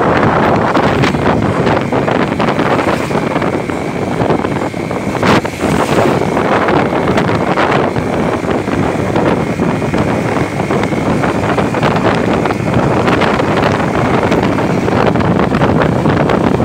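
Wind buffeting the microphone on a small-displacement motorcycle moving at road speed on a rain-wet road, with the engine and tyres running underneath. A faint steady high whine comes in about three seconds in and fades out about twelve seconds in.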